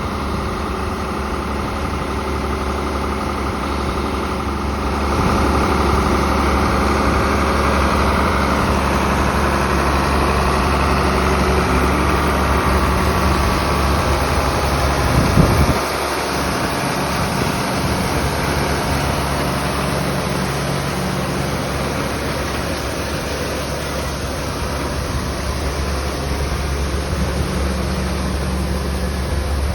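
John Deere 4440 tractor's six-cylinder diesel running steadily under load, driving the grain cart's auger as it unloads corn into a straight truck, with a rushing of grain over the engine. The sound gets louder about five seconds in, and there is a brief low bump about fifteen seconds in.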